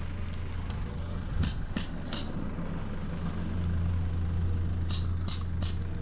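A hammer driving nails into the edge of artificial turf: two groups of three quick, sharp strikes, the first about a second and a half in and the second about five seconds in. An engine runs steadily underneath.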